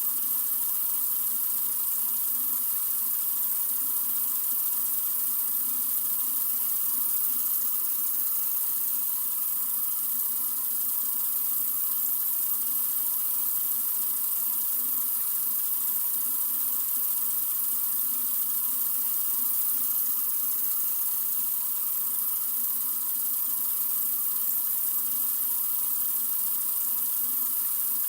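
Water running steadily from a sink faucet: an even, unchanging hiss.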